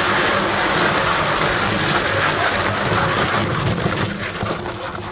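A car tyre dragged by a Belgian draft horse along the ground: a steady, rough scraping rumble that fades out near the end.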